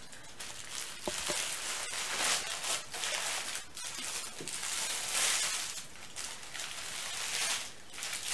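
Wrapping and newspaper padding rustling and crinkling in irregular surges as a packed dress is opened up and unwrapped by hand.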